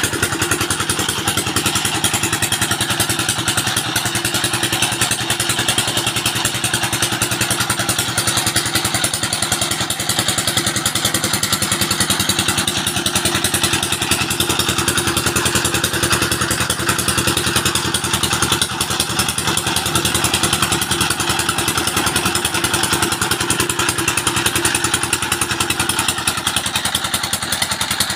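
Single-cylinder diesel 'Peter engine' running steadily at an even beat while it drives a borehole water pump. Water gushes from the pump's outlet pipe and splashes into the channel below.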